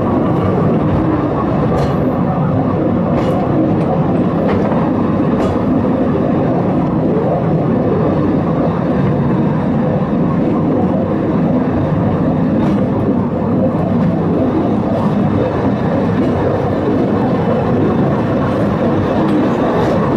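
Engelberg–Gerschni funicular car running uphill on its track: a steady rumble with a few faint clicks now and then.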